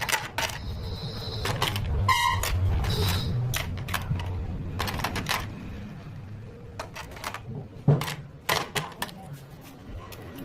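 Small plastic toy pieces clicking and tapping as they are handled, in irregular sharp knocks.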